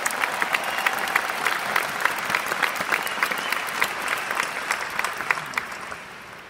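Large audience applauding: a dense wash of clapping with sharp individual claps close by, dying away near the end.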